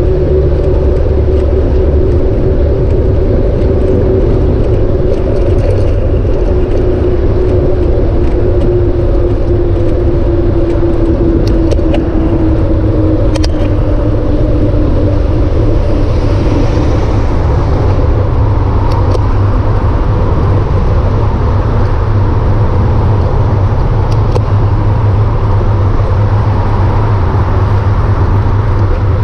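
Wind rushing over the microphone of a camera on a bicycle riding a freeway shoulder, with freeway traffic going by. A steady hum slowly falls in pitch over the first half, and a few faint ticks sound in the middle.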